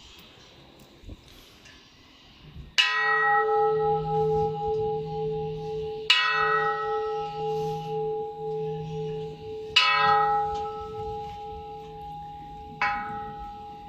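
A large temple bell struck four times, about three to four seconds apart, each stroke ringing on with a wavering hum; the last stroke is softer.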